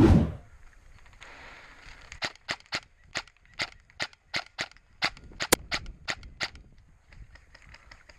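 A loud, low thump right at the start, then airsoft gun shots fired one at a time, about a dozen sharp snaps at roughly three a second over some four seconds.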